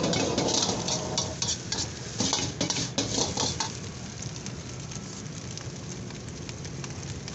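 Metal ladle clanking and scraping against a wok as fried rice is stirred and tossed over a gas flame, with sizzling. The clanks come in quick irregular strokes, then stop about three and a half seconds in, leaving a steady sizzle.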